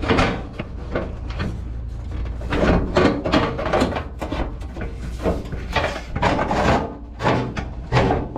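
A new sheet-metal outer rocker panel being handled and offered up against a truck cab: irregular rubbing, scraping and light knocks of the panel.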